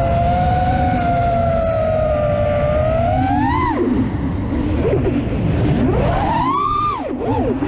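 FPV quadcopter's brushless motors (Karearea 2306 2850kv spinning Gemfan F4s props) whining in flight, the pitch following the throttle: a steady high whine that suddenly falls about three and a half seconds in as the throttle is cut for a roll, then a sharp climb and quick dips near the end. Wind rumble on the onboard camera's microphone.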